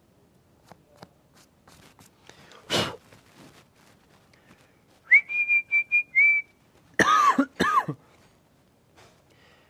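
A man whistles a few short notes on almost one high pitch, then coughs twice about a second later. A short breathy hiss comes about three seconds in.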